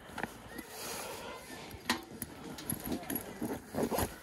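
Indistinct voices of people nearby, with a sharp click about two seconds in and light clinks.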